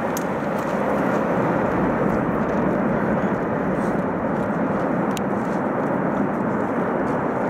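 Boeing 747-400's four jet engines during the landing roll-out: a loud, steady rushing noise that swells a little in the first second, then holds.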